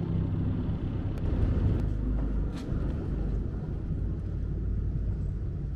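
Small ferry boat's engine running with a low steady rumble as the boat comes in to the landing, with a few brief knocks about a second or two in.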